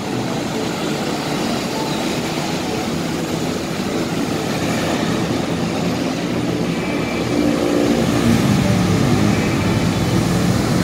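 Street traffic: the steady road noise of passing vehicles, getting a little louder about seven seconds in.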